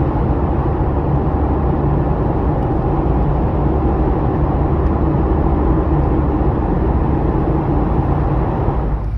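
Steady engine and tyre noise heard inside a four-wheel drive's cab while driving through a road tunnel.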